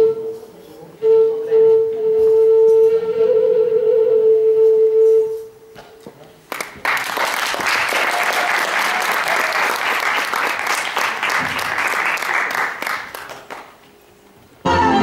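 A flute holds one long final note for about five seconds and stops; about a second later an audience applauds for roughly seven seconds. Music starts up again just before the end.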